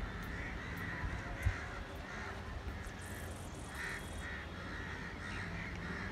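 Crows cawing repeatedly in short calls, over a low wind rumble on the microphone, with a single knock about one and a half seconds in.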